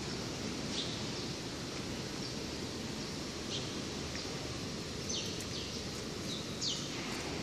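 Steady background noise of a large factory hall, with small birds chirping several times in short, high, falling chirps.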